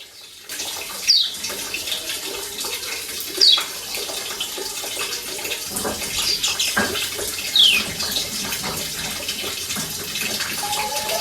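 Running water making a steady hiss, with three short falling chirps from a white-eye (kecial kuning) spaced a few seconds apart.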